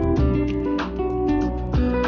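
Background music led by a strummed acoustic guitar over a steady bass line, with a strum roughly every second.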